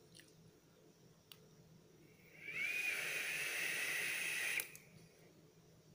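A puff on a vape: air drawn through a Haku atomizer as its 0.6 nichrome coil fires. It is a steady hiss with a whistling tone, starting about two seconds in and cutting off sharply about two seconds later.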